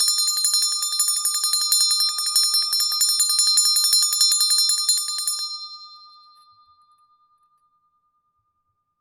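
Large bronze handbell shaken rapidly, its clapper striking many times a second with a bright, loud ring. A little over halfway through the shaking stops and the bell rings on, a single tone fading away over a couple of seconds.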